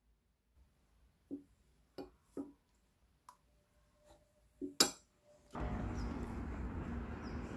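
Several light clinks of glass: a glass teacup being set down on its glass saucer, the loudest tap near five seconds in, with a faint ring lingering. About five and a half seconds in, steady outdoor street noise takes over.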